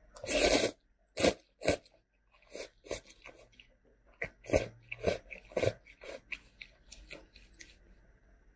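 A person eating instant ramen noodles close to the microphone: a loud slurp of about half a second at the start, then a string of short, wet chewing and mouth sounds, about one or two a second.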